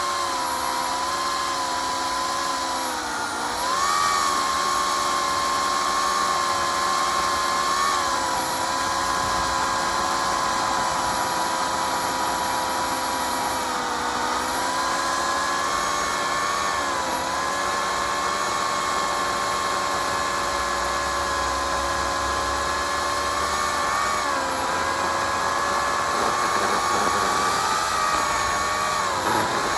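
Oregon CS1500 15-amp corded electric chainsaw running and cutting wood. Its steady motor whine sags in pitch several times under load and then recovers.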